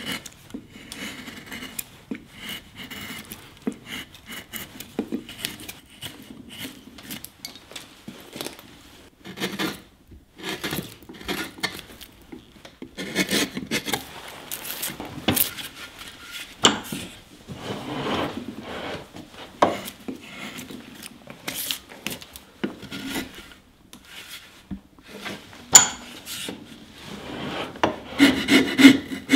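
Hand carving tools, gouges and a flat blade, cutting and scraping into the wood of a hat block: many short, irregular scraping strokes with a few sharper clicks, the loudest near the end.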